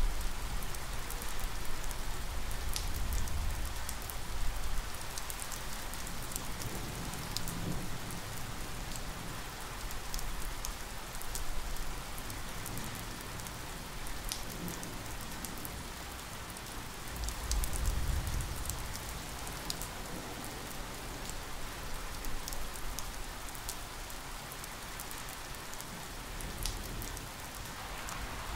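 Steady rain falling, with individual drops ticking sharply close by. A low rumble swells at the start and again about two-thirds of the way through.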